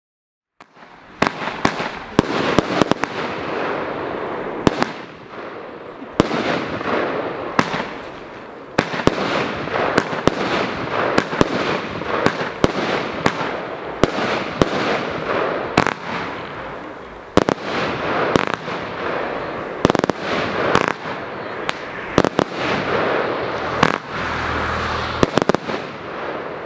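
Copenhagen Gold consumer fireworks battery (cake) firing, starting about half a second in: dozens of sharp reports, roughly one or two a second, from shells launching and bursting, over a continuous rush of noise from the burning effects.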